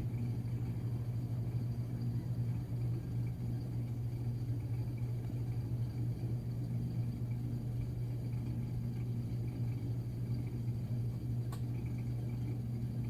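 Samsung washing machine running with a steady low hum, with one short click near the end.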